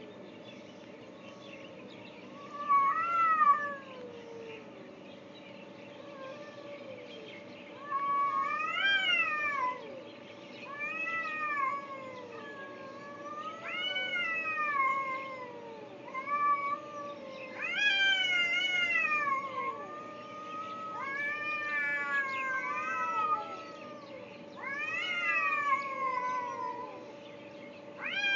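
Two cats caterwauling at each other in a fight: long, drawn-out yowls that rise and then fall in pitch, coming every few seconds and answering back and forth. A steady low hum runs underneath.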